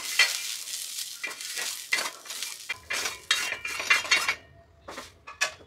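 Wooden spatula scraping fried onions off a flat tawa into a glass bowl: a quick run of scrapes and taps that thins out after about four seconds, with a few single taps near the end.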